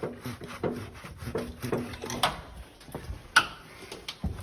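Hand tools working at exhaust bolts on a truck engine: metal scraping, rubbing and knocking in an uneven run, with one sharp click about three and a half seconds in.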